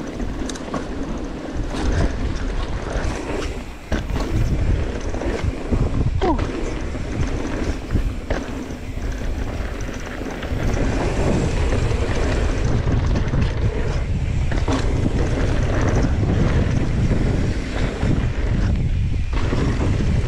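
Wind buffeting the microphone of a camera riding on a mountain bike going down a dirt trail, with tyre noise on the dirt and scattered clicks and knocks from the bike over bumps. It gets louder about ten seconds in.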